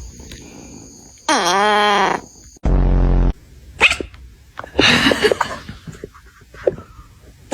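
A pet animal's vocal calls: one drawn-out cry that slides down in pitch, then several shorter rough cries. About three seconds in there is a short, loud, low buzzing blast.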